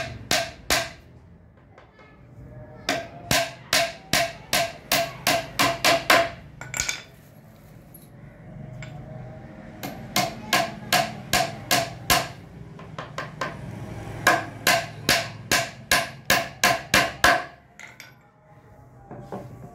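Hammer nailing together a laminated-board box frame: runs of sharp, ringing blows, about three a second, with pauses between the runs.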